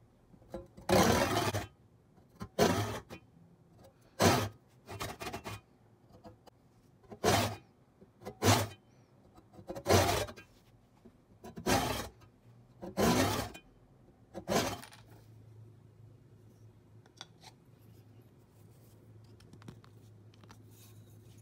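Hand saw cutting a slot into the end of a wooden hammer handle for its wedge: about ten scraping strokes, one every second or so, stopping about 15 seconds in.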